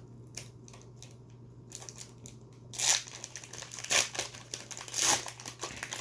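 The wrapper of a Tim Hortons hockey card pack crinkling and tearing as it is pulled open by hand. It starts about three seconds in, with several loud rustling surges.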